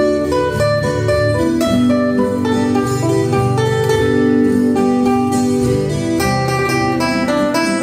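Background guitar music: plucked notes in a flowing melody.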